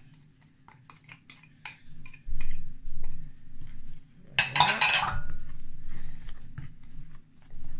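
Metal spoon stirring a thick egg and flour batter in a glass bowl, clicking and scraping against the glass, with dull knocks as the bowl shifts on the board. One longer, louder scrape comes about four and a half seconds in.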